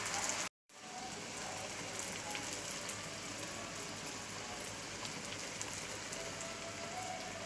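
Split white urad lentils (dal mash) sizzling steadily in oil in a karahi, the cooking water boiled off. The sound drops out briefly about half a second in.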